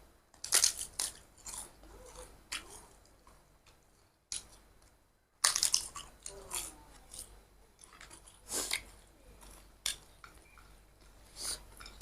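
Close-miked mouth eating sounds: chewing and lip-smacking on rice with pork, coming in clusters of wet, crackly clicks with quiet pauses between.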